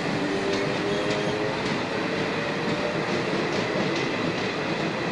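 Slam-door electric multiple unit running away along the track, a steady rumble of running noise with irregular clicks of the wheels over the rail joints.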